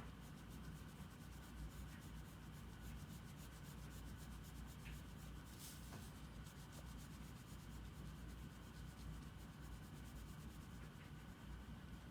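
Faint drawing strokes on paper: a tool rubbing back and forth in quick, close strokes, as in shading, over a steady low hum.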